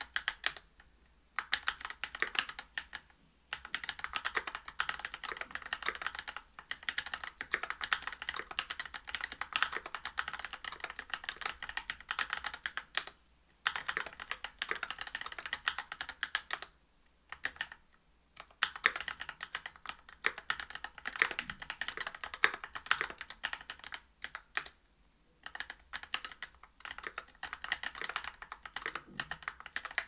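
Typing on a Whale 75 mechanical keyboard with brass plate, GMK keycaps and Infinity key Cow linear switches (UHMWPE housings, 63.5 g) lubed with Krytox 205g0. Dense runs of key clacks are broken by a few brief pauses.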